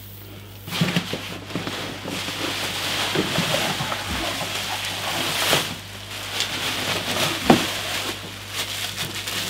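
Large sheet of bubble wrap rustling and crinkling as it is pulled off and bundled up, starting about a second in, with two sharp knocks in the second half.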